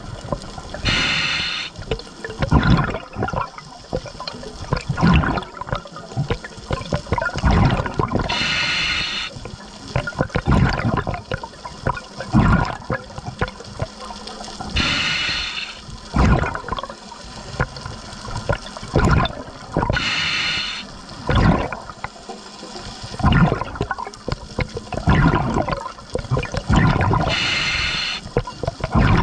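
A scuba diver's regulator breathing underwater: a hiss on each inhale, roughly every six or seven seconds, five in all, with exhaled bubbles gurgling and rushing past in between.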